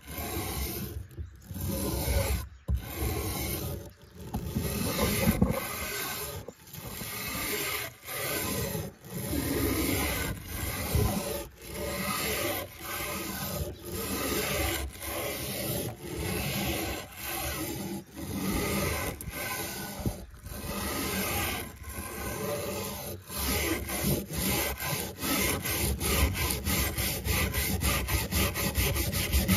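Steel wire brush scrubbing rust off a grass-shear blade that lies on a wooden table, in back-and-forth strokes. The strokes come about once a second at first and quicken to several a second near the end.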